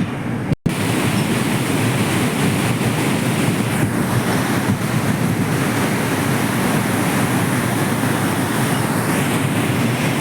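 Steady rushing of a large flow of water released through opened dam gates, with a short break about half a second in.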